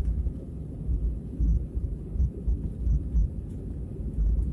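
Low, uneven rumble of an aeroplane, with gusty buffeting in the deepest tones.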